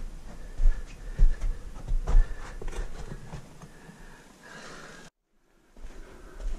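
Irregular scuffs and knocks of someone clambering through a narrow hole in a sandstone tunnel, with bumps on the microphone. The sound drops out completely for about half a second near the end.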